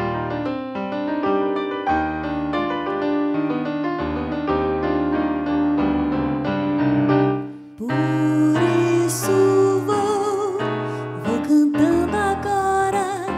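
Piano playing a flowing run of clear single notes and chords. About eight seconds in it cuts off abruptly to different, fuller music with a wavering, vibrato melody line.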